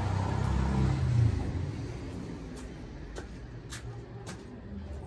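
A motor vehicle's engine rumbling close by, loud for the first second and a half and then fading into general street background. A few sharp clicks follow later.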